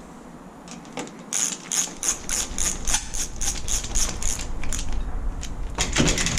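Ratcheting hand tool clicking, about five even clicks a second for roughly three seconds, while screws on a door's mortise lock are worked. A few scattered, louder clicks and knocks follow near the end.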